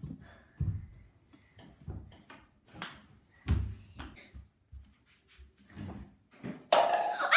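Footsteps thudding up wooden stairs, then a ping pong ball clicking as it bounces on a concrete floor. Near the end a child starts to yell.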